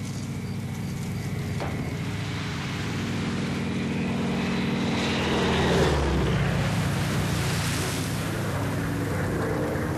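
Single-engine propeller plane flying low past: its engine drone grows louder, peaks about six seconds in, then drops in pitch as it passes and moves away.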